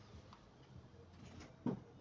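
A single sharp click about 1.7 s in, over a faint background.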